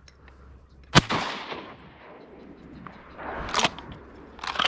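A single close, loud shotgun blast about a second in, ringing out across the water, followed by two softer rushes of noise.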